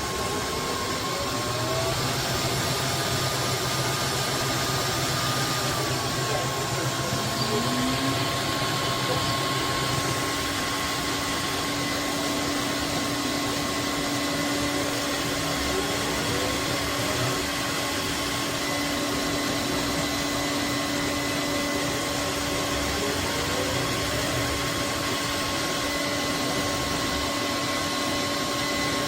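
Roborock F25 GT wet-dry vacuum mop running its self-cleaning cycle in the dock: steady motor and fan noise with a constant whine. A low hum drops out about ten seconds in, and a few short rising chirps come and go.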